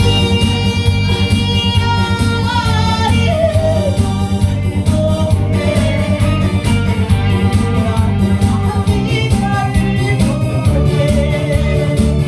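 A woman singing a Korean trot song into a microphone, amplified over music with a steady beat. Her voice holds long notes that bend in pitch.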